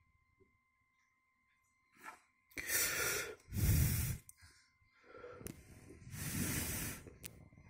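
Rushing air on the microphone in four bursts, two pairs of them, starting a little over two seconds in.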